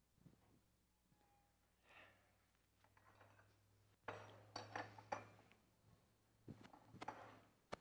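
Faint clinks and knocks of cups and dishes being handled at a coffee table. One cluster of sharp clinks comes about four seconds in and another near the end.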